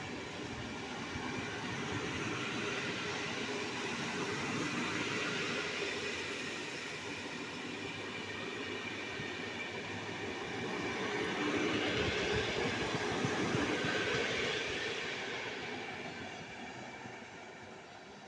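Passenger coaches rolling past on the rails, a steady noise of wheels on track that fades away as the last coach draws off near the end.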